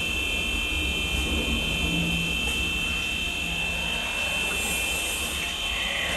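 A steady mechanical drone: a constant high whine over a low rumble.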